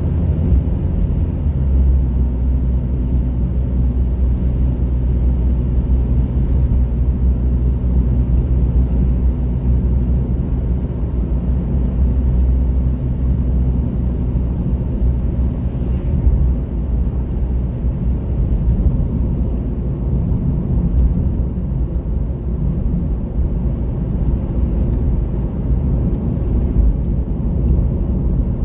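Steady low drone of a car's engine and tyres on the road, heard from inside the cabin while driving.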